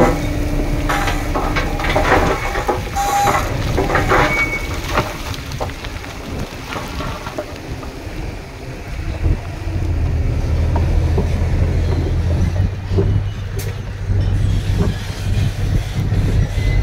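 Heavy diesel earthmoving machinery at work: metallic clanks and short squeals for the first few seconds, then a diesel engine running with a steady low drone that grows louder about ten seconds in.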